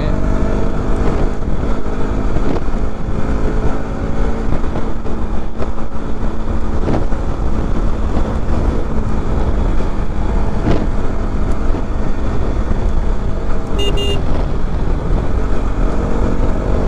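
KTM RC 200's single-cylinder engine running steadily at a cruise while riding, with heavy wind rumble on the microphone. A short horn beep sounds near the end.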